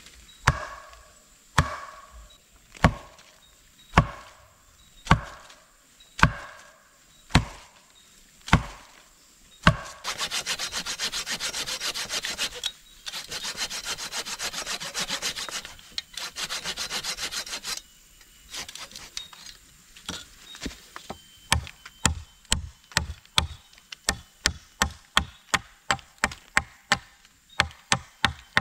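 A long-handled blade chopping into a green sapling, about nine sharp strikes roughly a second apart. It is followed by a hand saw cutting through a green wooden pole in two long runs of fast, even strokes. Near the end come quick light taps of a hatchet on the pole, about two or three a second.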